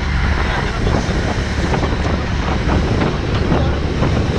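Wind buffeting the microphone over the steady running of a motorboat's engine and the rush of its wake.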